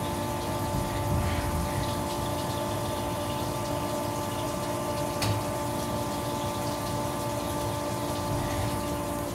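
Flood coolant spraying inside the enclosure of a Tormach 1100MX CNC mill during a rigid tapping cycle, over a steady machine whine of several held tones. One sharp tick about five seconds in.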